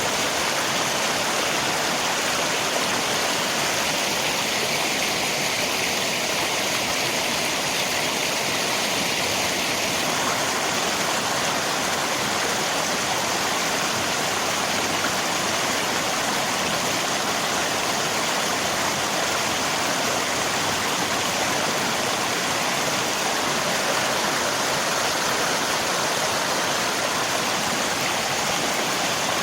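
River water rushing steadily, mixed with falling rain: an even, unbroken hiss with no distinct drops or splashes standing out.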